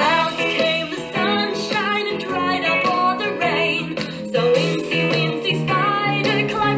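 Music: a song with a woman singing over plucked guitar accompaniment.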